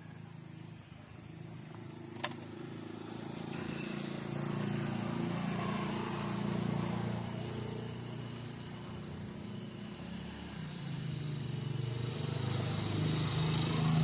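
A vehicle engine humming, swelling and fading twice like passing traffic, over a faint high insect chirr. A single sharp click comes about two seconds in.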